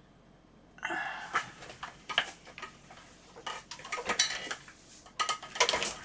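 Small metal tools and parts being handled and set down on a workbench: irregular clinks, clicks and rattles in bunches, starting about a second in.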